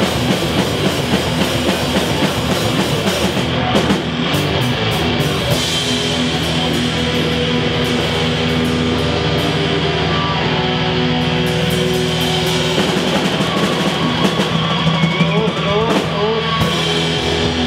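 Live rock band playing at full volume: drum kit, electric guitars and bass guitar together, steadily loud throughout.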